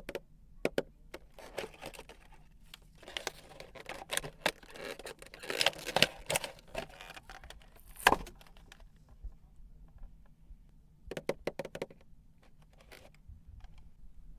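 Hands unpacking and handling toys and their packaging: scattered sharp plastic clicks and knocks, with a stretch of rustling and crinkling in the middle and a loud click just after it.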